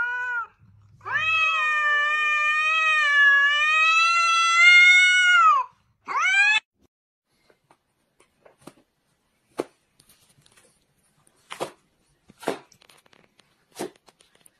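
A cat yowling in a stand-off with another cat. It gives a short call, then one long drawn-out yowl of about four and a half seconds and a short rising call. After that come a few short scattered rustles and taps of a cat tearing toilet paper.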